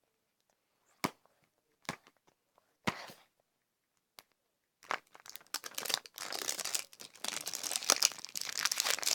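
A few separate taps, then from about five seconds in continuous crinkling and tearing of a LOL Surprise toy's wrapping as it is peeled open, getting louder toward the end.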